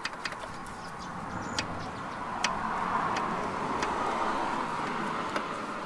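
A steady rushing noise that swells over a few seconds and then fades, with a few faint sharp clicks from a hand handling the engine's connecting rod caps.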